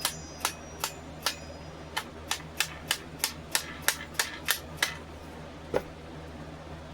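A quick series of sharp taps on the nodachi's fittings, about three a second, stopping about five seconds in, with one last tap a second later. The first few taps leave a faint metallic ring. The taps are meant to drive the habaki back up the blade and loosen the blade from the grip.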